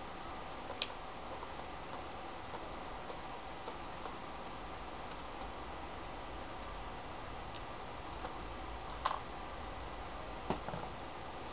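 Light clicks and ticks of a Phillips screwdriver working small screws out of a circuit board in a plastic control-panel housing. There is a sharper click about a second in, faint ticks between, and two louder clicks near the end.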